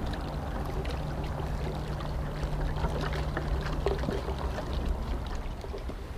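Choppy open water lapping and splashing, with a faint steady hum that cuts off about four seconds in.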